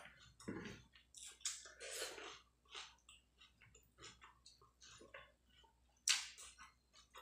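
Close-up chewing and mouth sounds of someone eating rice and fried fish by hand: irregular soft smacks and clicks, with fingers squishing rice on the plate. One louder, sharper smack near the end.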